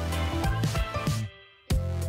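Background music with a steady drum beat over a held bass. It cuts out for a moment just past a second in, then the beat comes back.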